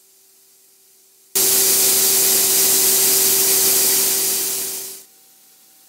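Compressed air hissing loudly, starting abruptly and fading away after about three and a half seconds, as when a blast of air clears chips off a freshly milled ring.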